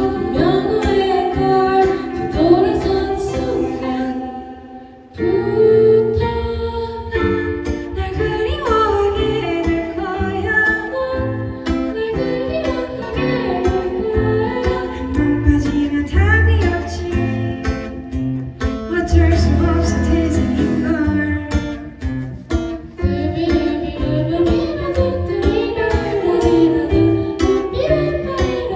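Live band music: female vocals sung over guitar and keyboard accompaniment. The music thins out and drops in level about four seconds in, then comes back in full about a second later.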